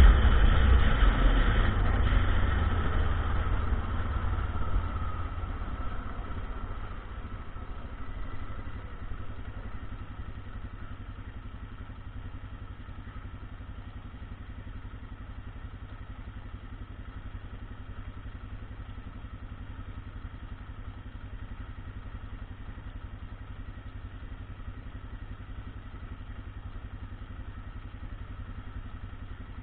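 ATV engine running, loud at first and dying down over about eight seconds to a low, steady idle-like hum.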